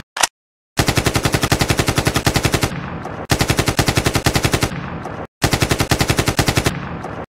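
Automatic gunfire sound effect: a single shot, then three long bursts of rapid machine-gun fire, each about two seconds, with short pauses between them.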